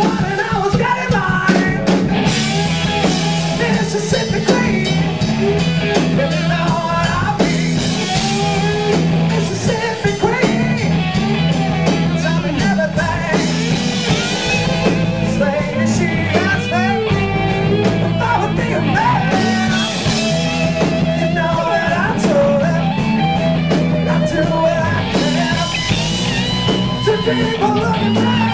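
Live rock band playing: a man singing lead over electric guitars, bass guitar and drums.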